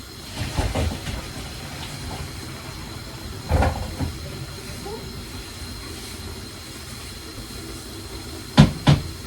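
Steady hiss of stovetop cooking, with a few knocks and clatters of pots and utensils: a cluster about half a second in, another about three and a half seconds in, and two sharp knocks close together near the end.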